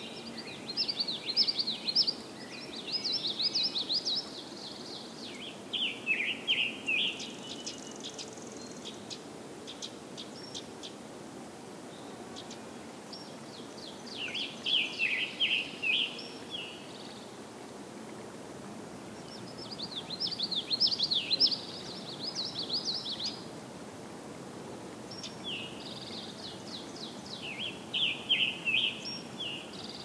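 Spring woodland birdsong: a scarlet tanager and common yellowthroats singing, with a distant eastern towhee and ovenbird among other birds. Phrases of quick, high notes, each a second or two long, come every few seconds over a steady low background noise.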